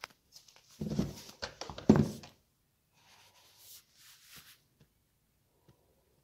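Handling noise: two dull knocks about a second apart, with sharp clicks between them, then faint rustling.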